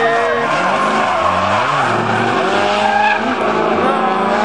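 Two Nissan S13 drift cars in a tandem drift: engines revving up and down while the rear tyres skid and squeal.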